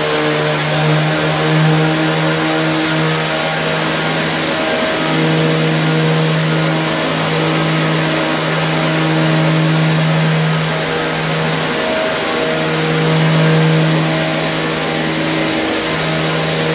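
Petrol cut-off saw (disc cutter) running near full throttle as it cuts concrete, a loud, steady high engine note. The note dips briefly twice, about twelve and sixteen seconds in.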